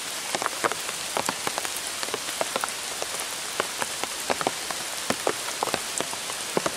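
Rain falling: a steady hiss with irregular sharp drop hits close by, several a second.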